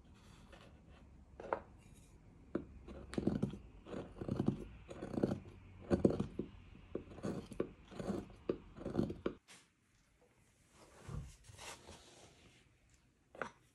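Carving blade cutting into a hard block of Japanese zelkova (keyaki) wood by hand: a run of short, crisp slicing strokes about two a second, each shaving off a chip. They stop abruptly, leaving a few soft knocks of wood against the board.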